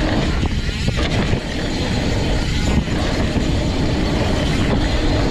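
Wind rushing over the camera microphone and mountain bike tyres rumbling over a dirt trail at speed: a steady, loud rush.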